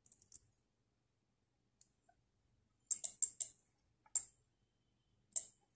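Computer mouse clicking: a quick cluster of three sharp clicks about three seconds in, then single clicks about a second and two seconds later.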